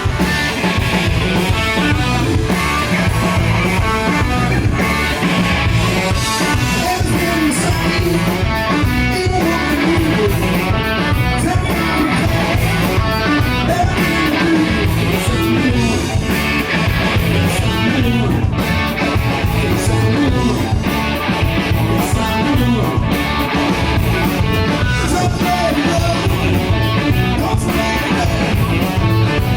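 Rock band playing live: electric guitar over bass and drum kit, loud and steady.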